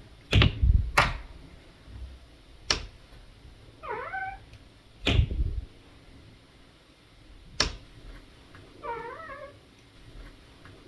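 A door swung back and forth on its freshly silicone-lubricated hinge: about five sharp knocks with two short, rising squeaks, one near the middle and one near the end, a little of the hinge squeak not yet worked out.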